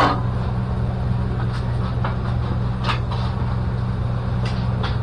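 Steady low hum with a few faint knocks and clicks of sheet steel as a 1966 Ford Mustang door shell is lifted off its cut-away outer skin.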